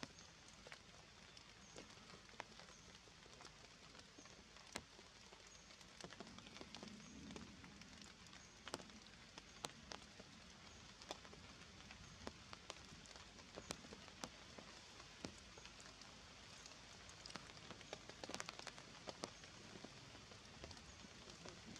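Drops of water falling on wet leaves: irregular light ticks over a soft hiss, a few drops louder than the rest.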